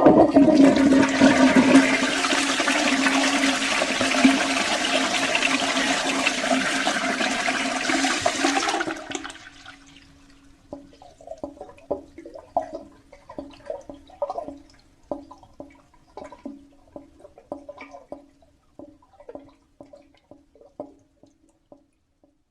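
Toilet flushing: a loud rush of water for about nine seconds that drops off fairly suddenly. Quieter, scattered gurgles and drips follow over a faint steady hum, and they die away near the end.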